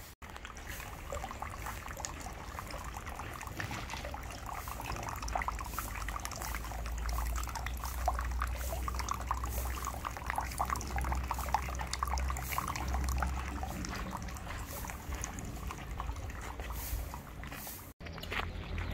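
Water trickling from a bamboo spout into a stone shrine water basin, falling onto floating flowers with a steady light splashing. It cuts off abruptly near the end.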